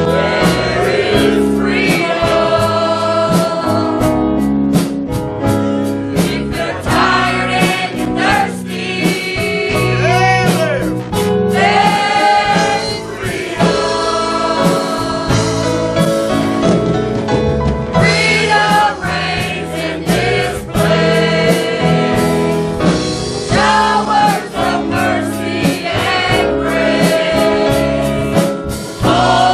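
Gospel worship song: a group of voices singing together over a band with a steady beat.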